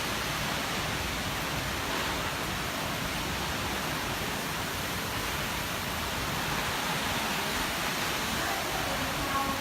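Wind and rain of a tropical storm, a dense, steady rush of noise.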